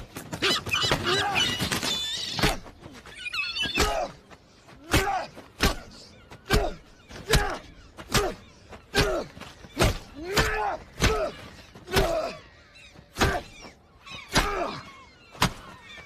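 A seagull's body smashed again and again against a stone cistern rim: a heavy thud about once a second, each with a man's grunt of effort. The first two seconds or so hold a dense burst of shouting and noise before the run of blows begins.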